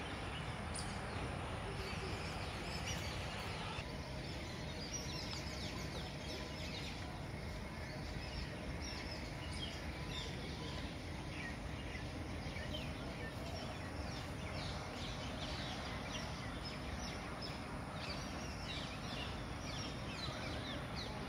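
Many birds chirping with short, quick notes over a steady low outdoor background noise. The chirping grows busier about four seconds in.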